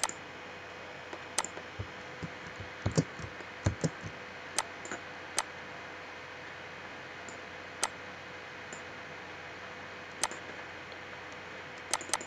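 Computer mouse clicks and keyboard keystrokes, a dozen or so sharp separate clicks at irregular intervals, bunched between about two and five seconds in and again near the end, over a steady faint hiss.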